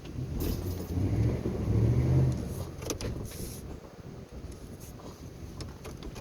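Ford F-150's 5.0-litre V8 engine revving up as the truck pulls on a tow strap, loudest about two seconds in, then easing off. A sharp click or clank comes about three seconds in.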